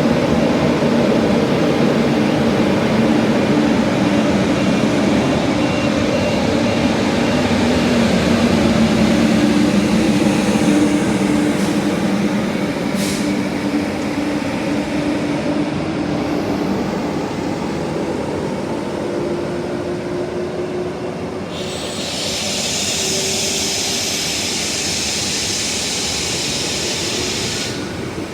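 Electric train running through the station: a loud, steady rumble with a low motor hum that slowly shifts in pitch. About three-quarters of the way through, a high hiss sets in and lasts several seconds, stopping shortly before the end.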